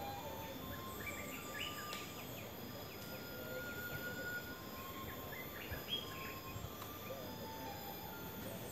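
Outdoor park ambience: birds calling with clusters of short chirps and a few drawn-out whistles, over a steady high insect drone. A single soft thump comes about two-thirds of the way through.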